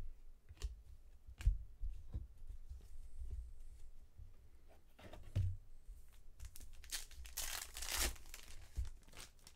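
A foil trading-card pack wrapper being torn open and crinkled, with a long tearing, rustling stretch in the second half. It is preceded by scattered light taps and clicks.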